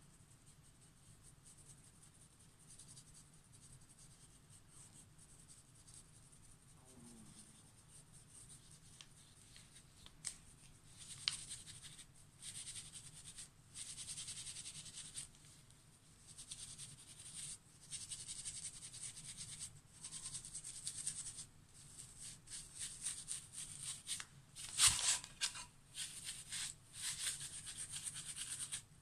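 A wet wipe rubbing over a painted wooden board in repeated strokes of a second or two, wiping wet paint back off to leave a patina effect. Before that, a paintbrush makes faint scratching strokes on the board. A sharp knock comes near the end.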